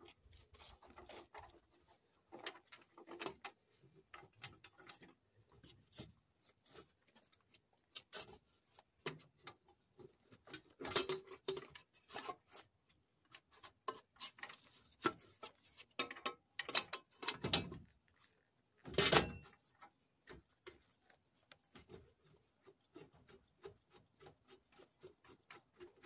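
Scattered light clicks, knocks and scrapes of a new front wheel hub assembly and its backing plate being shifted against the steering knuckle while the bolt holes are lined up, with a few louder scrapes about two-thirds of the way through.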